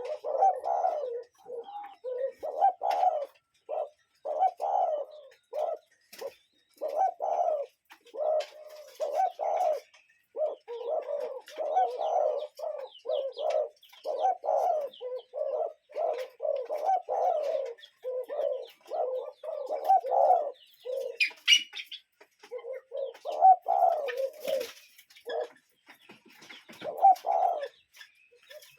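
Several birds cooing in low, repeated calls that overlap with hardly a break. There is a short pause about two-thirds through, where a brief higher chirp sounds.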